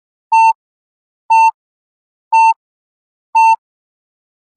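Yo-Yo endurance test timer's electronic countdown beeps during the rest period: four short, identical high beeps about a second apart, counting down the last seconds of rest. Right at the end a louder, lower, buzzier tone starts, the signal to set off on the next shuttle.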